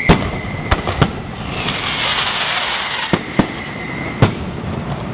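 Fireworks going off: six sharp bangs of shells bursting at uneven intervals, three in the first second and three more between about three and four seconds in, with a hissing crackle in between.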